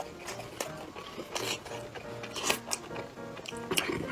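Close-miked mukbang eating sounds: wet chewing and lip smacks as a man eats sausage with spicy cabbage, coming as irregular sharp smacks several times over. Light background music with a simple melody plays underneath.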